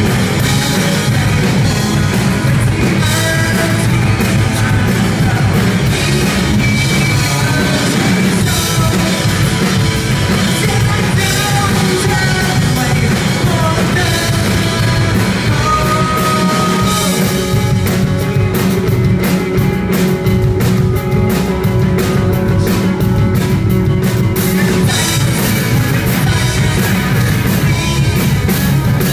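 Live rock band playing loud: electric guitars, bass and drum kit, with a singer's voice over the music in the first half.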